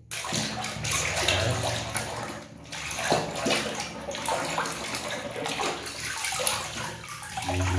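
Water sloshing and splashing in a basin as a hand swishes and scrubs a plastic toy in it, with a short lull about two and a half seconds in.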